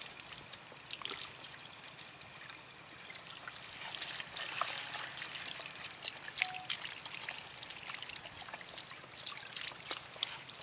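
Shallow water trickling steadily down a mud channel into a woven bamboo basket fish trap, with many small splashing ticks.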